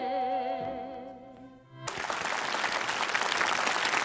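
A woman's voice singing a held note with wide vibrato in an old recording, fading out. About two seconds in, studio audience applause starts abruptly and carries on.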